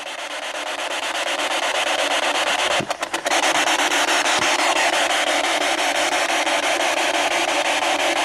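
P-SB11 spirit box sweeping through radio stations: a steady hiss of radio static, chopped rapidly and evenly as it jumps from channel to channel. It breaks up for a moment about three seconds in.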